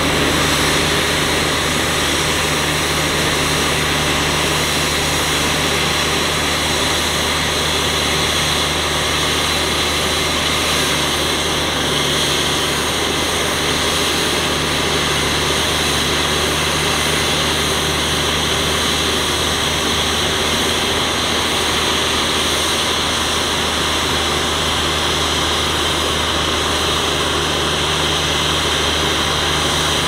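Heavy diesel engine of earthmoving machinery running steadily, a constant low drone with no breaks.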